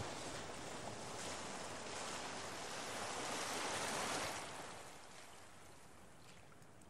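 A soft, even rushing noise with no tune or beat, swelling and then fading down about four and a half seconds in.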